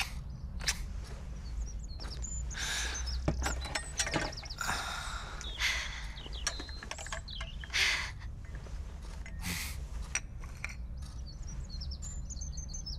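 Bedclothes rustling and a breakfast tray and coffee cup being handled on a bed: a string of short soft rustles and a few small clicks over a steady low hum.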